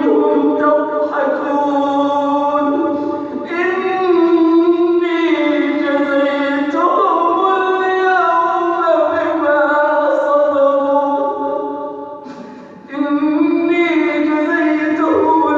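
A male reciter chanting the Quran in a drawn-out melodic style. He holds long ornamented notes that slide between pitches, pausing once for breath about twelve and a half seconds in.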